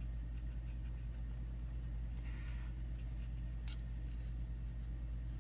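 Faint small scrapes and ticks of steel knife parts, a folding knife's blade and handle, being handled against each other, with one sharper tick about two-thirds of the way in, over a steady low hum.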